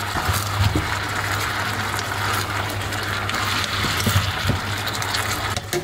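Beef, onions and tomatoes sizzling in a wok while a wooden spatula stirs them, scraping the pan a few times, over a steady low hum.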